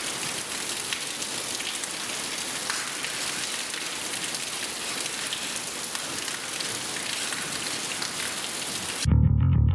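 Steady rain, an even hiss with scattered small crackles, which cuts off suddenly near the end as a punk band's bass guitar starts playing.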